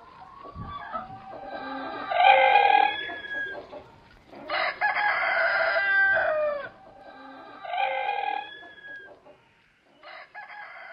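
Roosters crowing: four long calls, each tailing off in a falling note, the loudest about two seconds in and the longest in the middle.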